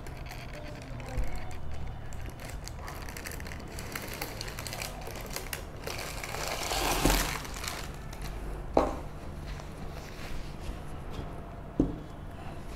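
Baking paper rustling and crinkling as a freshly baked brownie is lifted out of a square metal baking tin by its paper lining, with a few sharp knocks in the second half as things are set down on the table.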